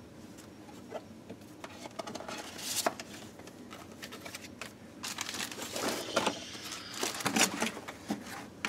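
Paper and packaging being handled, rustling and crinkling in short irregular bursts with scattered clicks and taps, busier in the second half.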